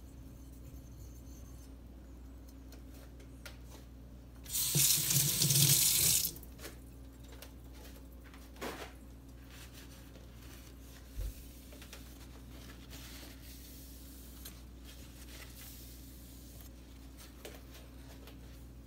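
Water from a sink tap runs for about a second and a half, then stops; afterwards only a couple of faint knocks over a low steady hum.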